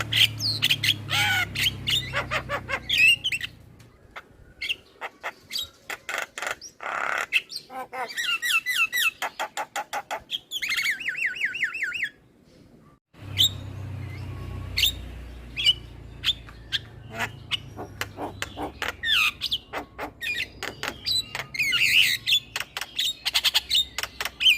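Male Javan myna chattering: a fast mix of sharp clicks, harsh squawks and quick whistled chirps, with a break of about a second roughly halfway through. A faint low hum runs underneath at times.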